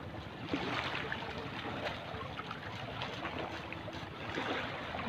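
Steady wash of wind and small waves lapping on choppy open water.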